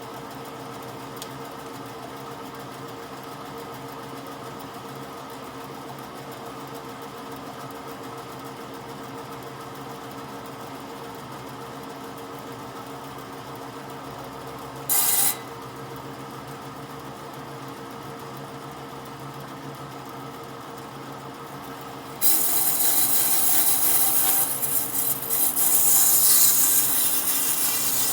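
An electric power tool's motor runs steadily with a constant hum. About halfway, a brief loud rasp sounds; over the last six seconds comes a loud, rough, uneven rasping as the tool works wood.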